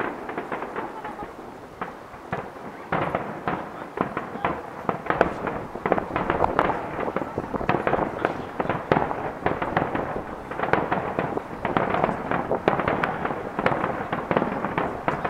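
Aerial firework shells bursting in rapid succession, a dense stream of bangs and crackles that grows louder and busier about three seconds in.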